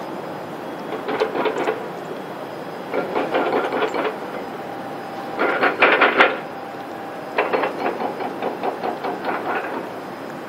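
Cat licking a Churu lickable paste treat from a tube held to its mouth. The licking comes in bursts of quick wet clicks, each about a second long, every couple of seconds.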